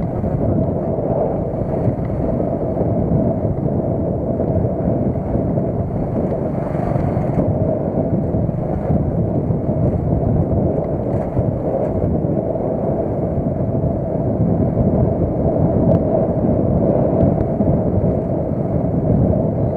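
A car driving along: steady, unbroken engine and road noise, mostly low in pitch.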